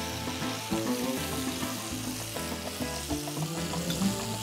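Barbecue sauce sizzling in a frying pan as it is stirred with a silicone spatula, over background music.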